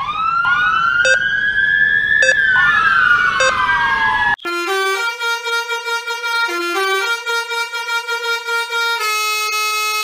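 A siren wailing in overlapping rising and falling glides, with three short beeps like a checkout scanner about a second apart, cut off abruptly about four seconds in. Then a horn sounds a slow tune of long held notes that step between a few pitches.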